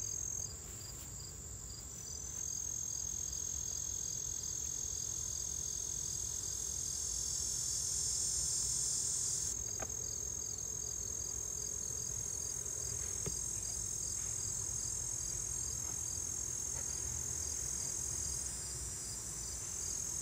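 Crickets chirping and trilling in summer vegetation: a steady high-pitched trill with regular chirps about two or three a second, over a low hum. The trill swells louder about halfway through, then drops back suddenly, and a couple of faint knocks come from the hive boxes being handled.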